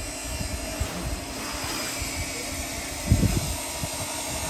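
Uneven low rumble over a steady hiss of background noise, with a louder low thump about three seconds in.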